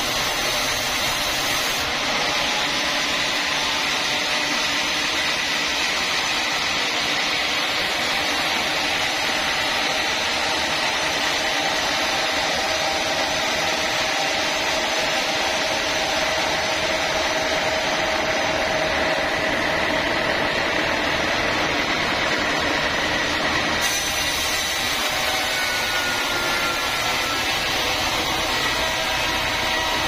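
Band sawmill blade cutting lengthwise through dry mahogany: a steady whirring saw noise with a faint whine held through it. The hiss on top thins out about two seconds in and comes back near the end.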